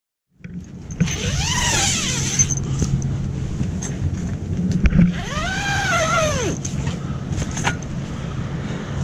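A tent door zipper is pulled open in two long strokes, each a buzz that rises and then falls in pitch with the speed of the pull, with a few small clicks, over a steady low rumble.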